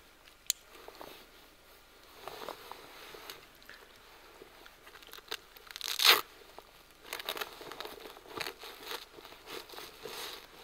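Crinkling and rustling of a caving oversuit's fabric as it is fastened at the neck and chest, with a sharp click about half a second in and one louder, short rip about six seconds in.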